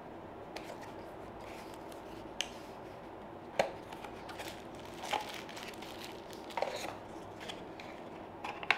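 Cardboard box and packaging being handled: a cardboard insert and plastic-wrapped parts lifted out, giving about half a dozen soft taps and rustles spread through, the sharpest a little past three and a half seconds in and near the end.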